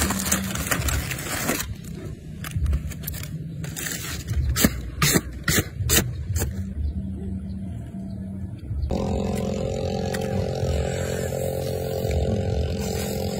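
Aluminium foil crinkling and crackling as a foil packet of grilled food is pulled open, with sharp crackles over a low rumble. About two-thirds of the way through this gives way to a steady low hum.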